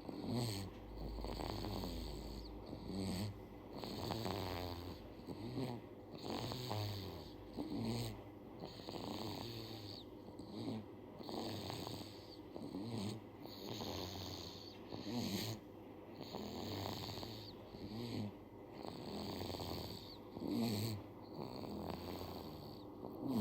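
Baby snoring in its sleep, a noisy breath about every two seconds in an even rhythm.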